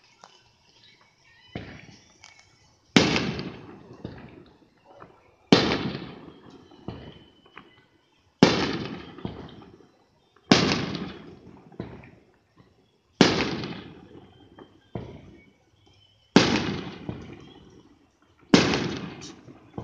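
Aerial fireworks exploding in a series of loud bangs, about one every two to three seconds. Each bang fades away over a second or two, with fainter pops and crackles between them.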